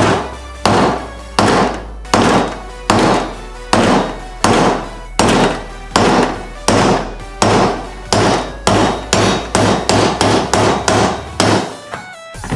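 Hammer blows on a socket, driving a U-joint bearing cap out of a double cardan driveshaft yoke: a steady run of strikes about one every three-quarters of a second, quickening to two or three a second after about eight seconds. Background music plays underneath.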